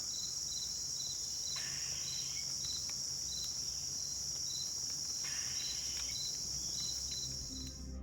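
Insects calling outdoors: a steady high trill, with a second insect chirping about twice a second on top.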